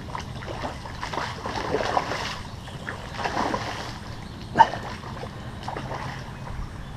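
Hooked carp splashing and swirling at the pond surface in several short bursts as it is played on a rod, with one sharp knock about four and a half seconds in.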